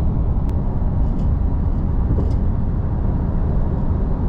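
Strong tropical-storm wind of about 25-30 knots buffeting the microphone: a loud, steady, fluttering low rumble.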